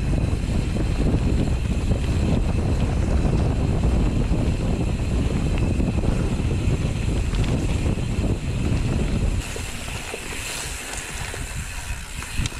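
Riding noise from a mountain bike descending a dirt trail: wind buffeting the camera microphone mixed with the rumble and rattle of the bike rolling over rough ground. The noise drops abruptly about nine seconds in and stays quieter as the bike slows.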